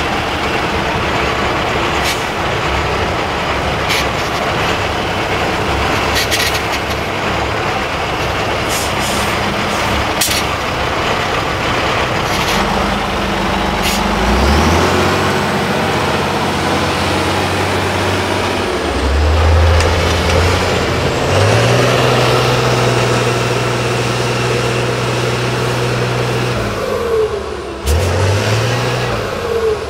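Tatra 8x8 trial truck's turbo-diesel engine working under load as the truck crawls through deep sand and ruts. About halfway through the revs rise in steps and are held high for several seconds, then come a few short blips near the end. Scattered clicks and knocks run through it, and a faint high whistle rises in the middle.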